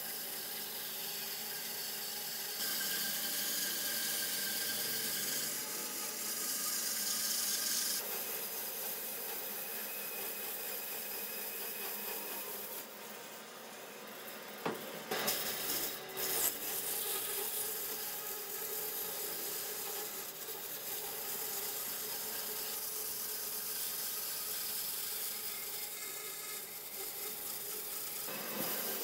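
Band saw running and cutting lengthwise through a thick log, the blade rasping steadily through the wood. A few sharp knocks come about halfway through.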